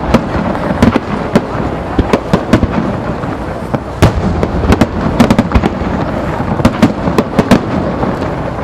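Starmine firework barrage: many aerial shells bursting in quick, irregular succession, sharp bangs and crackles over a continuous rumble of launches and reports.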